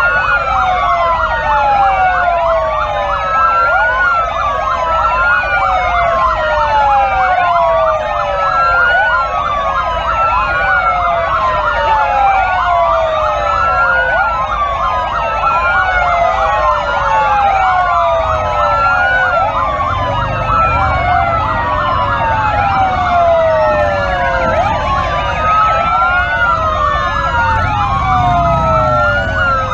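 Many police motorcycle sirens wailing at once, their rising and falling sweeps overlapping without a break. Underneath, motorcycle engines rumble, louder about two-thirds of the way through and again near the end.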